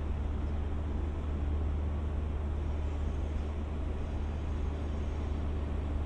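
Indian Pacific train's diesel engine running steadily: a constant low hum that does not rise or fall.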